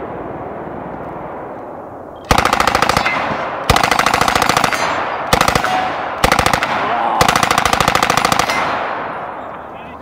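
Lage MAX-41A submachine gun, a working M41A Pulse Rifle replica, firing five long full-auto bursts in quick succession starting about two seconds in, the last ending a little more than a second before the end, with the echo fading afterwards.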